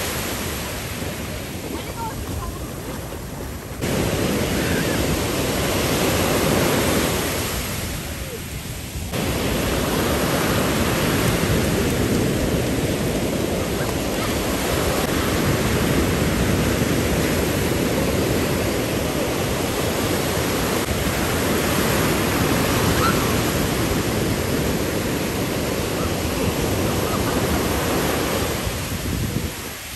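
Ocean surf washing and breaking, with wind buffeting the microphone: a dense, steady hiss that drops quieter twice and jumps suddenly louder again about four and nine seconds in.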